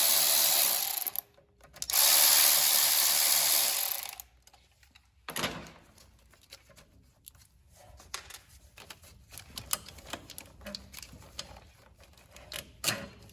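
A cordless drill/driver runs in two bursts of about two seconds each, loosening nuts on a lawn tractor's starter solenoid. After that come small clicks and rattles of wires and parts being handled, with one sharper knock near the end.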